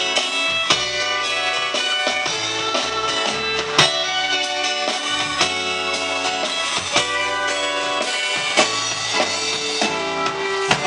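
Live country dance band playing an instrumental passage: fiddle and pedal steel guitar over guitar, upright bass and drums keeping a steady beat.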